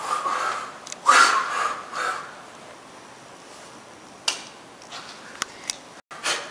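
Hard breaths of air blown out through the mouth in a breathing exercise: two strong exhalations in the first two seconds, then quieter, with a few sharp clicks.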